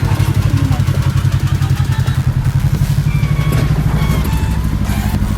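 Kawasaki KRX 1000 side-by-side's parallel-twin engine running at a steady, low speed, with a fast, even pulse.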